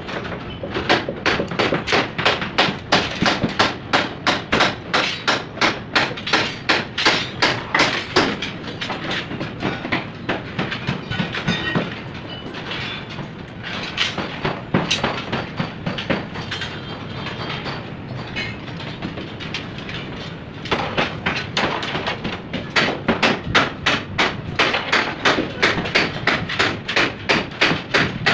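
Hammering: a steady run of hand-hammer blows, about three a second, easing off to softer, irregular strikes about midway, then picking up the steady rhythm again near the end.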